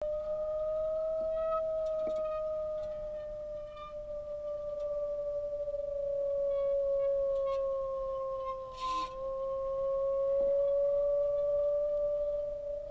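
A sustained pure hum-like tone with a fainter tone an octave above, sagging slightly in pitch and rising back, with faint scattered electronic blips and a short burst of hiss about nine seconds in.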